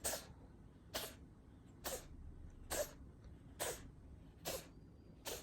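Domestic cat coughing in a steady rhythm, one short, sharp hack a little under every second, seven in all.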